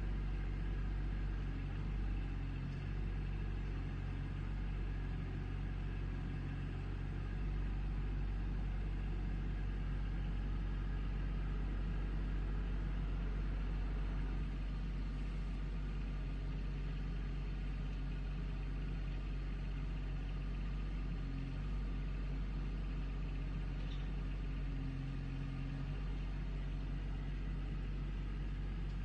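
Backhoe engine running steadily with a low rumble, its note shifting slightly now and then.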